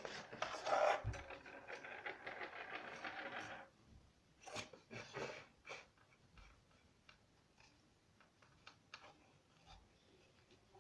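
A pen or marker scratching on paper in quick strokes for the first few seconds, then a few faint taps and handling noises.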